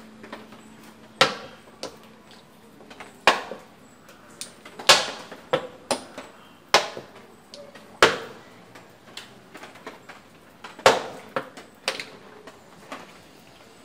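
Checker pieces clacking down onto a wooden board as moves and captures are played: about a dozen sharp knocks at uneven spacing, some in quick pairs.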